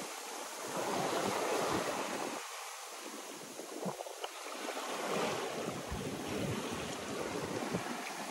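Ocean waves and foaming wash rushing past the hull of a sailboat under way, swelling and easing as the boat moves through the swell.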